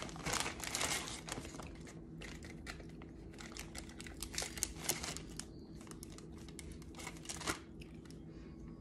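Plastic zip-top bag crinkling as it is handled, the rustles densest in the first second or so, then scattered crinkles until near the end.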